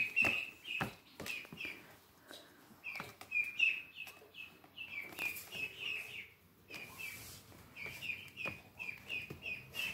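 A run of short, high-pitched chirps or squeaks from a small animal, about two or three a second, broken by a brief pause midway.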